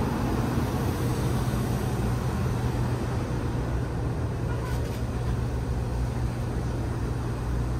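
Steady low mechanical hum and rumble of a railway station platform, with an even background hiss and no change in level.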